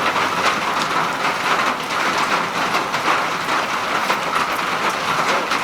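Heavy rain falling steadily, with many individual drops ticking on hard surfaces close by.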